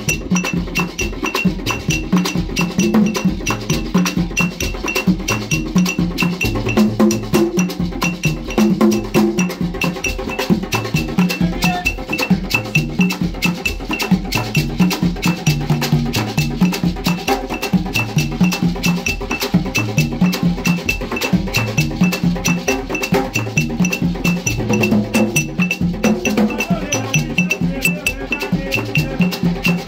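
Haitian Vodou ceremonial drumming on several hand drums, beaten with hands and a stick, with a struck metal bell ringing in time. Group singing of the ceremony's chants runs over the rhythm.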